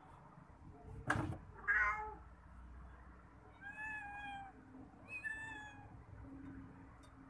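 Cat meowing: two clear, high-pitched meows about a second apart, after a sharp knock and a shorter call near the start.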